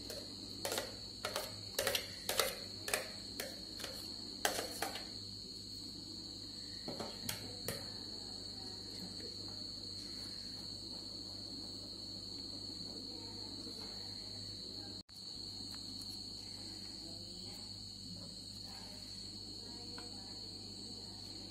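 Metal spoon knocking and scraping against a steel mixer jar as thick blended puree is tapped out into a plastic sieve: about eight sharp knocks over the first five seconds and a few fainter ones a little later. After that, only faint stirring of the puree in the sieve, over a cricket chirring steadily throughout.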